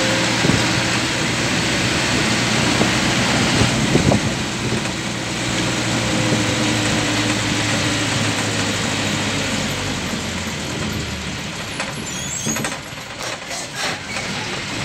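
Engine and road noise of a moving road vehicle, heard from inside it: a steady running drone with road rumble. It eases slightly near the end.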